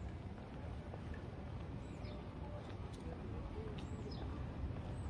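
Traditional street-market ambience: a steady low background hubbub, with a few faint high chirps falling in pitch now and then.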